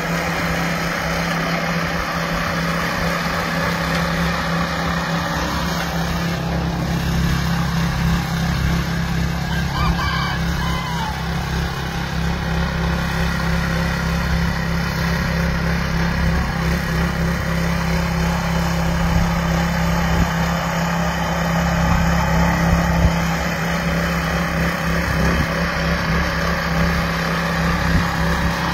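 Small engine of a walk-behind garden tiller running steadily under load as its tines churn through the soil.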